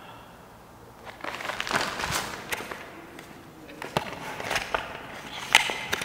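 Hurried footsteps with rustling and sharp knocks, starting about a second in, the loudest knock near the end.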